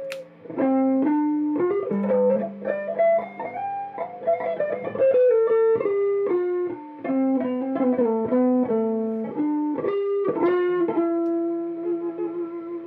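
Electric guitar played as a single-note melody, picked notes stepping up and down one at a time. Near the end it settles on one long held note that wavers slightly and slowly fades.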